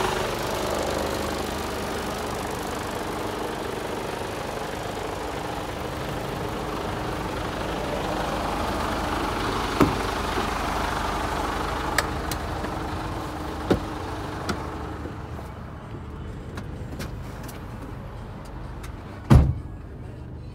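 Mercedes Actros 2545's Euro 6 straight-six diesel idling steadily, first heard beside the cab and then, from about fifteen seconds in, more muffled from inside the cab. A few sharp clicks come in the middle, and a loud heavy thud comes near the end.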